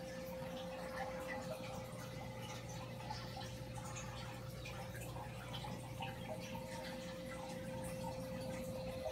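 Aquarium water trickling and dripping steadily over a constant motor hum from the tank's running equipment.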